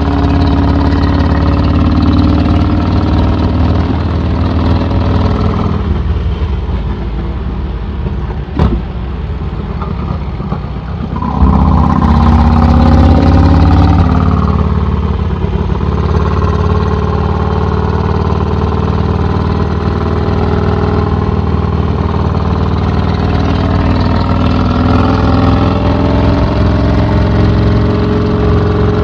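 Vincent 1000cc V-twin engine running through an open straight-through exhaust while the motorcycle is ridden. It pulls steadily, then eases off and goes quieter for a few seconds, with one sharp click in the lull. It then opens up suddenly louder with rising pitch before settling back to a steady cruise.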